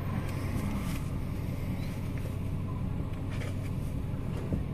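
Car engine idling, a steady low hum heard from inside the cabin, with a few faint clicks and rustles.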